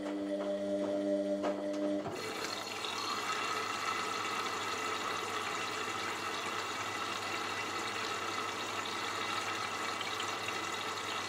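Washing machine: a steady hum of several pitched tones gives way about two seconds in to a steady rush of water running through the machine.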